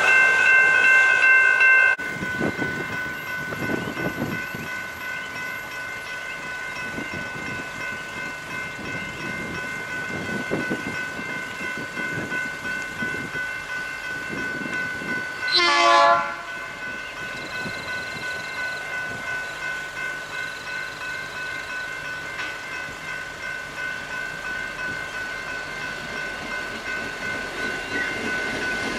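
Railway level crossing warning bells ringing steadily, louder for the first two seconds. About halfway through comes one short, loud blast of a diesel locomotive's horn from an approaching Freightliner G-class locomotive, and near the end the locomotive grows louder as it reaches the crossing.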